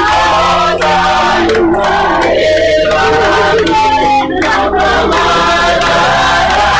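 A group singing together, led by a man's voice on a microphone, over steady held low instrumental notes.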